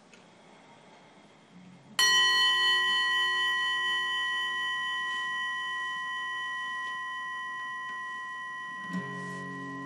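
A bell struck once about two seconds in, ringing with several clear overtones and fading slowly. Near the end a low acoustic guitar chord comes in under it.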